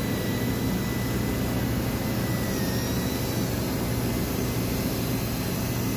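Ship's engine-room machinery running steadily: an even noise with a low hum underneath and a faint high whine.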